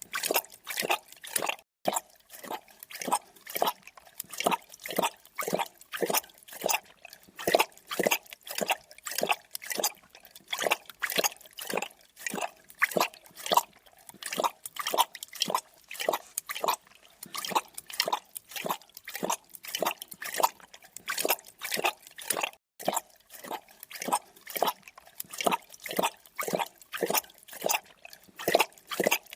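A creature drinking: quick wet lapping and slurping strokes, about two to three a second, going on steadily.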